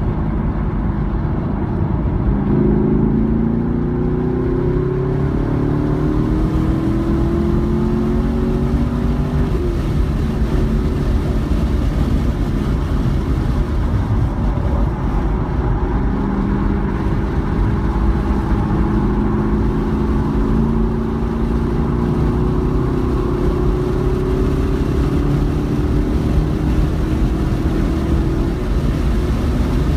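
Chevrolet Camaro SS's 6.2-litre V8 at full throttle, heard from inside the cabin over wind and road noise. The engine note climbs for several seconds, eases for a few seconds about a third of the way in, then climbs again as the car accelerates to over 100 mph.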